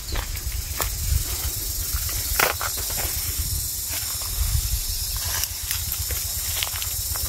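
Wind buffeting the microphone in a fluctuating low rumble, over a steady high hiss, with scattered crunches of footsteps through dry leaves and grass.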